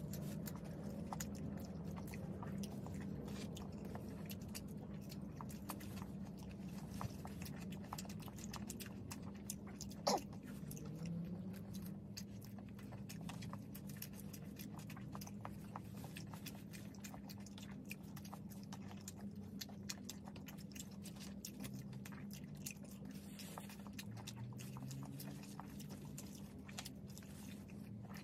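Close-miked chewing and biting of cheeseburgers and French fries, with wet mouth clicks and crunches throughout over a steady low hum. A brief squeak rising quickly in pitch comes about ten seconds in.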